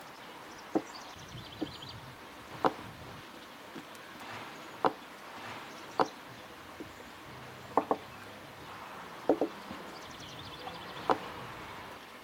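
About ten short, sharp knocks at uneven intervals, a couple of them in quick pairs, over a steady outdoor background. A faint high-pitched trill comes once near the start and again near the end.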